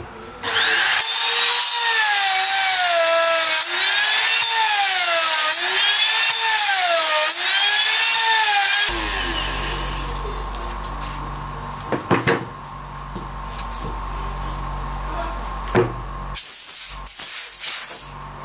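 Compact trim router cutting a circle in MDF on a circle jig: its motor whine rises and falls in pitch in repeated waves as the bit loads and unloads around the cut. After about nine seconds a quieter steady hum follows with a few sharp knocks, and near the end a compressed-air blow gun hisses briefly.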